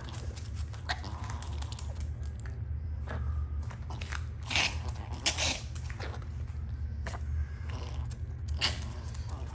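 Irregular crunchy clicks and ticks from a small long-haired dog moving about on a hard laminate floor, over a steady low hum.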